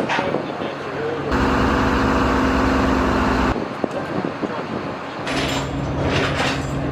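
A machine motor running steadily. It cuts in sharply about a second in, stops abruptly halfway through, and another steady hum with clicking starts near the end.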